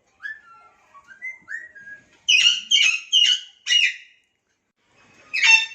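Pet lovebirds calling: soft short twittering chirps, then four loud, shrill calls in quick succession, and one more a second later near the end.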